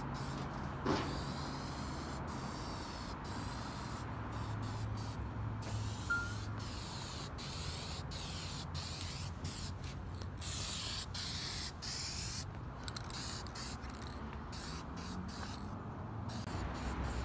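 Black spray paint hissing onto a welded steel bash bar, sprayed in many short passes with brief stops between them.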